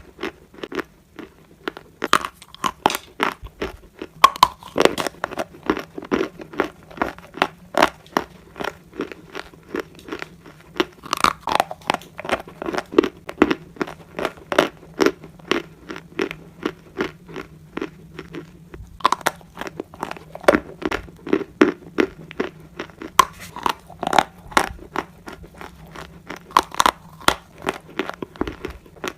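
Turkestan edible clay being bitten and chewed close to the microphone: a dense, irregular run of sharp crunches, with a few louder bites standing out among steadier chewing.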